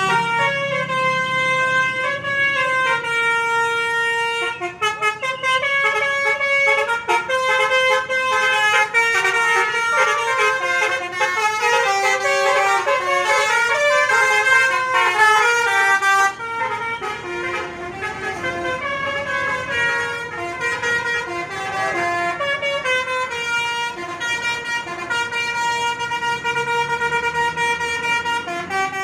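Indonesian 'telolet' multi-tone bus horns play melodic tunes. The tunes are held notes that step up and down in pitch, sounding almost without a break. Around the middle several horns overlap into a dense jumble of notes.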